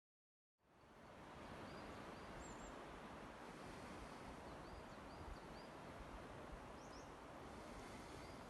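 Faint outdoor woodland ambience, a steady soft rush of background noise fading in after about half a second, with a small bird giving short high chirps in several brief runs.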